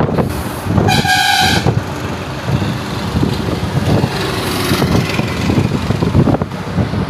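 Wind buffeting the microphone and road noise from a moving vehicle. A vehicle horn sounds one short toot about a second in.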